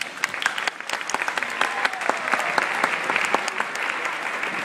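Audience clapping, which breaks out all at once, with a few voices calling out among the claps.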